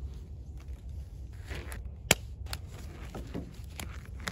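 Handling noise from a small plastic bottle of gun-bluing cleaner: a few sharp clicks and light rustling over a steady low rumble.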